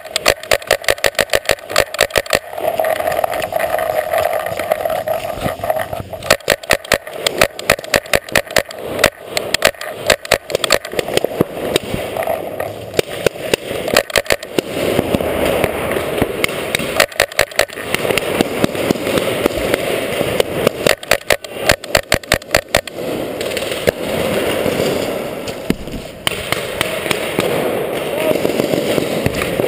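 Paintball markers firing in fast strings of shots, several a second, with short pauses between strings, inside a large hall.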